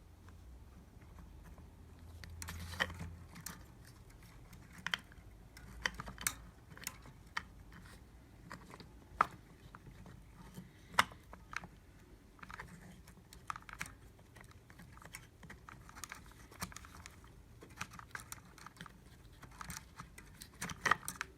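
Irregular clicks and taps of hard plastic parts being handled and pushed into place, as a replacement square plastic piece is fitted into the groove of a capsule espresso machine's lever mechanism.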